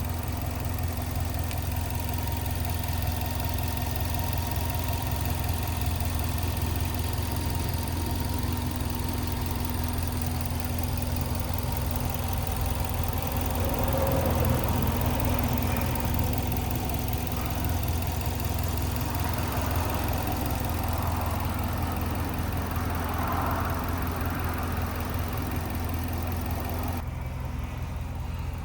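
Subaru Impreza WRX STI (GDB) 2.0-litre turbocharged flat-four (EJ207) idling steadily through an aftermarket FGK muffler. It swells slightly about halfway through, and the higher hiss drops away near the end.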